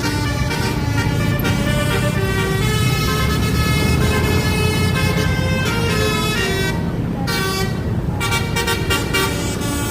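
Bus 'telolet' basuri horn playing a stepped, multi-note melody over a low engine rumble. The horn breaks off for about a second around seven seconds in, then starts again.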